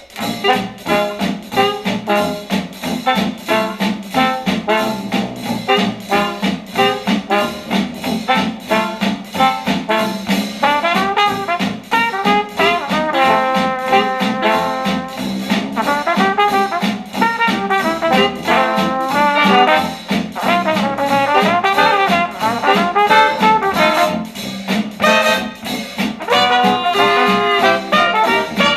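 Upbeat retro jazz led by trumpet and trombone over a steady beat, played through a Star Wars Millennium Falcon Bluetooth speaker, with little deep bass.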